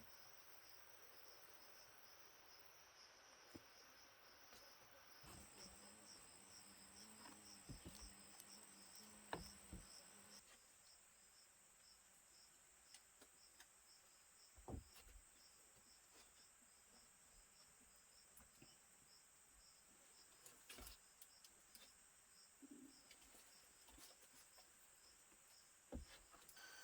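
Faint insects chirping in an even, rapid pulse over a steady high whine, with a few soft knocks now and then.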